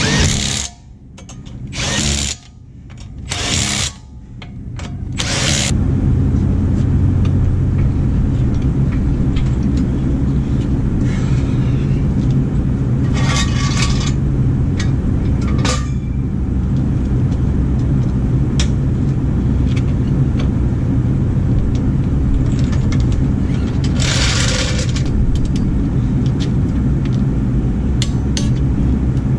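A power tool run in four short bursts, snugging the wheel's lug nuts, then a steady low rumble with a few brief metallic clinks of tools.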